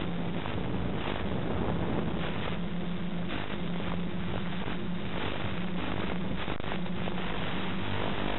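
Steady drone of a quadcopter's DJI E300 2212 motors and 9x4 propellers in flight, a low hum that wavers slightly, mixed with wind rush and a hiss of static.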